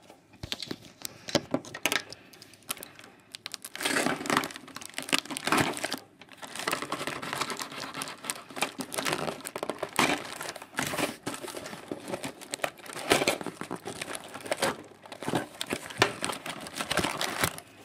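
Clear packing tape and a small cardboard box crinkling and tearing as the box is pulled open by hand, in irregular bursts of rustling and crackling.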